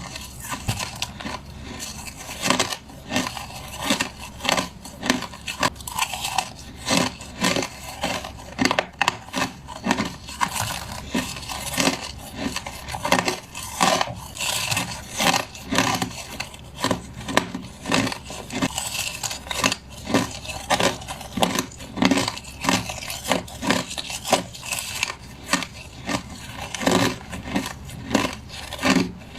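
Close-up crunching of crushed ice being bitten and chewed, a steady run of sharp cracking bites about once or twice a second.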